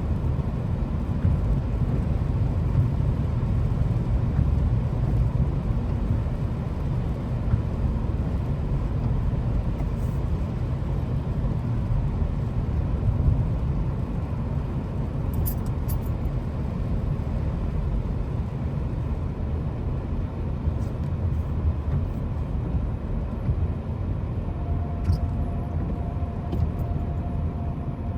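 Steady low rumble of a car driving on the road. A faint steady tone joins near the end for about three seconds.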